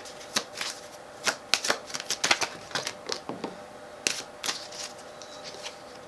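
A deck of tarot cards being shuffled by hand: a run of irregular papery snaps and flicks, thick at first and thinning out over the second half.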